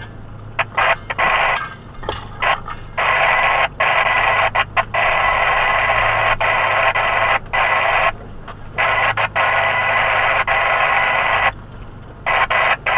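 Two-way radio hissing with static that cuts in and out abruptly in blocks, over a low steady hum.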